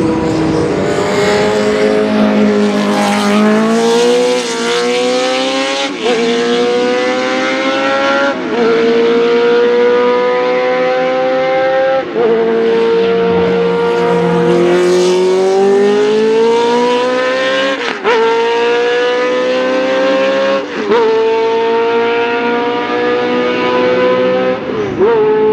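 Group C prototype race car engine under hard acceleration, its note climbing steadily and dropping sharply at each gear change, about seven shifts, with a brief easing off and pull back up midway.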